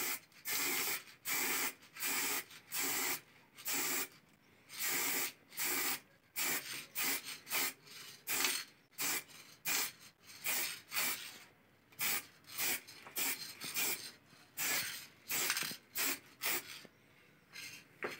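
Aerosol spray-paint can hissing in short bursts, roughly two a second, as small parts are touched up with paint.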